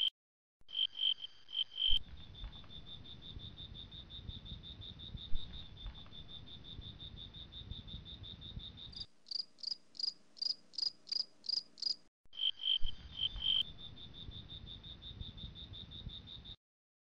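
Insects calling in high, evenly repeated chirps. Slow loud pulses, a few a second, run into a fast even trill. The sound cuts off abruptly a few times, and a low rumble lies under much of it.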